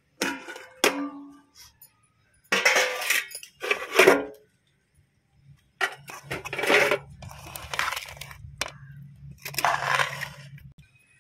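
A steel spoon scraping and clinking against a stainless-steel vessel while stirring and scooping a dry vegetable stir-fry, in several scrapes about a second long each. Two sharp metal clanks with a brief ring come just after the start.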